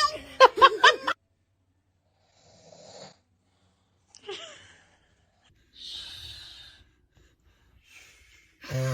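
A baby's short, wavering cry in the first second. Then come pauses broken by a few soft breathy sounds and gasps, and another cry starts near the end.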